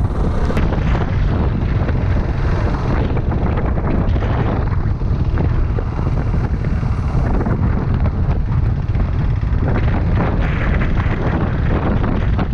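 Wind buffeting the microphone of a moving motorcycle, with engine and road noise underneath.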